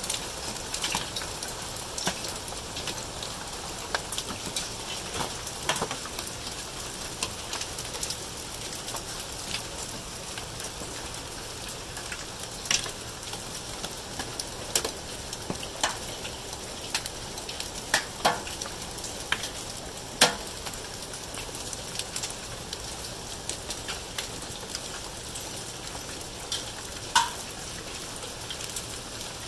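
Hailstorm: a steady hiss of hail and rain falling, broken by many irregular sharp clicks and taps of hailstones striking hard surfaces, a few of them much louder knocks.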